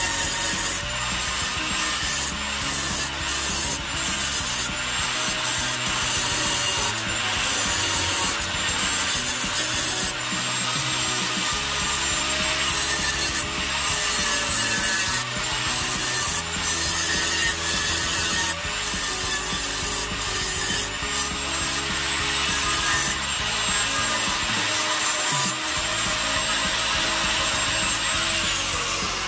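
Angle grinder grinding steel on a vehicle's underside: a loud, steady scraping hiss over a high whine. Just before the end it is switched off and the whine falls away as the disc spins down.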